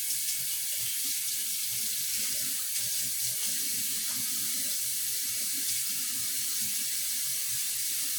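Water running in a steady rush, like a tap or a stream of poured water.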